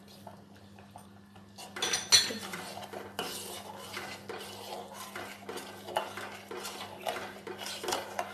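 Steel ladle stirring thick kheer in a stainless steel pot, scraping and clinking against the pot's sides and bottom as freshly added sugar is stirred in. The stirring starts about two seconds in with a sharp clink, then runs on in repeated short strokes.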